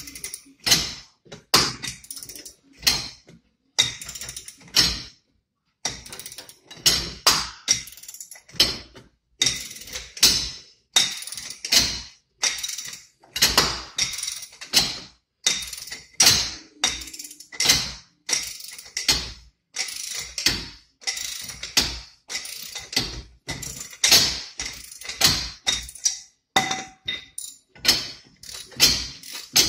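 Ratchet wrench clicking in quick back-and-forth strokes as it turns a hub puller pressing the rear wheel hub out of the bearing carrier. Sharp clicks come several a second in runs, with short pauses between.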